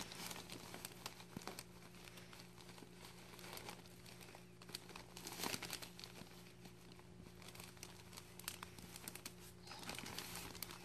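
Plastic zip-top bag crinkling and rustling faintly as a gloved hand works down through the peat moss inside it, under a low steady hum.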